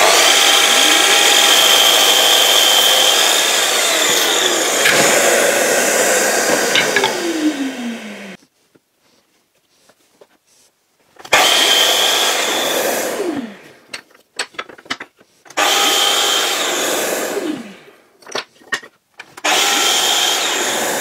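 Festool Kapex KS 60 sliding mitre saw run four times to cut mitres in a wooden strip: each time the motor starts with a steady high whine, the blade cuts, and the pitch falls as the blade winds down. The first run is the longest, about eight seconds; the other three are shorter.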